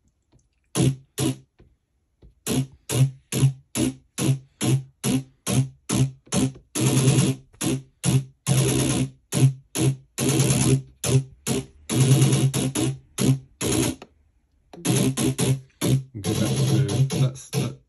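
Electronic drum pattern playing back from a Maschine+ step sequencer: a few single hits at first, then a steady beat of short hits from about two seconds in, breaking off briefly near the end before it carries on denser.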